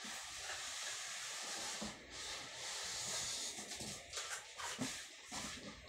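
Cardboard carton sliding up and off a subwoofer packed in styrofoam and plastic: a steady rubbing, scraping hiss in two long pulls, followed by a few light knocks near the end.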